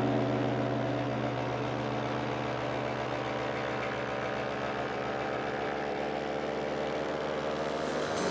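Paramotor engine running steadily in flight, a constant even drone.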